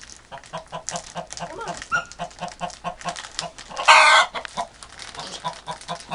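Broody hen clucking in a steady run of about four short low clucks a second, the agitated sound of a sitting hen disturbed at her nest. A loud, harsh burst about four seconds in.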